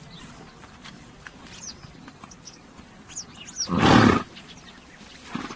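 A horse blowing out hard through its nostrils once, about four seconds in, a loud breathy burst, then a shorter, softer one near the end. Small birds chirp faintly in the background.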